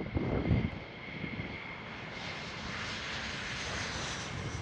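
Four turbofan jet engines of a C-17 Globemaster III transport flying low overhead: a steady rushing hiss with a thin steady whine, swelling and getting brighter about two seconds in. Wind buffets the microphone at the start.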